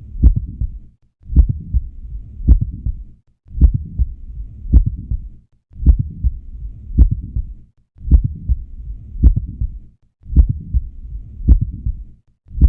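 Heart sounds heard through a stethoscope at the cardiac apex: a mid-systolic click in each beat, the classic sign of mitral valve prolapse. Sharp low clicks repeat evenly, with a softer rumble between them.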